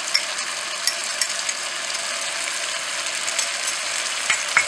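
Cauliflower and potato pieces frying in oil in a non-stick pan with ground spices: a steady sizzle, with a wooden spatula clicking and scraping against the pan now and then, the loudest knocks near the end.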